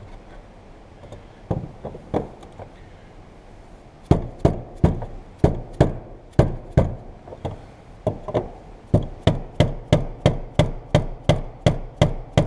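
Small hammer knocking on a screwdriver set against the fuel pump's retaining ring to drive it counterclockwise and loosen it: a few scattered knocks, then from about four seconds in a steady run of knocks that quickens to about three a second near the end.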